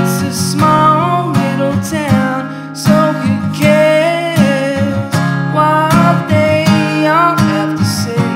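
Folk song with a strummed acoustic guitar and a voice singing the melody over it.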